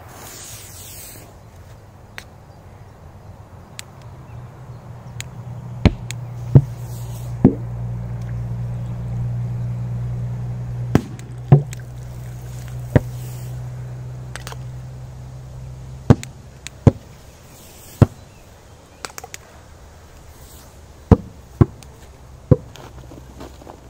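Small firecrackers thrown one after another into bog water and bursting: about a dozen sharp bangs, several in quick pairs. A lit fuse hisses in the first second. A low steady hum runs behind the bangs through the middle.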